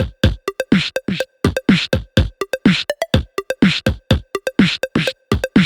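Electronic music with a fast drum-machine beat: punchy kicks that drop in pitch, crisp snare and hi-hat hits, and a faint held synth tone underneath.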